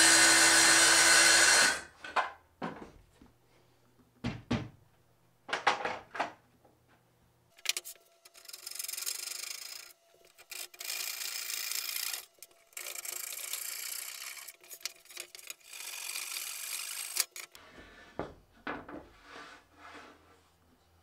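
A cordless circular saw cutting plywood, cutting off suddenly about two seconds in. Then a few knocks of plywood being handled, followed by about four long rubbing strokes of the plywood edge being smoothed by hand, and more light knocks near the end.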